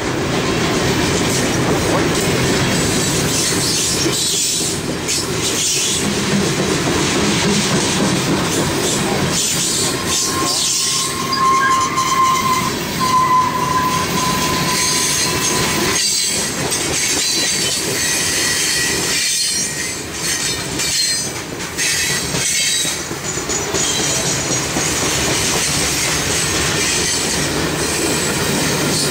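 Heavily loaded CSX freight train gondola cars rolling past close by, with a steady rumble and rattle of steel wheels on the rails. A high steel wheel squeal rings out for a few seconds near the middle.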